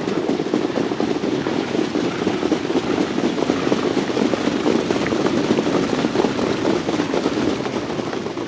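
A field of harness trotters and their sulkies passing on a dirt track: hoofbeats and wheels blend into a steady rumble.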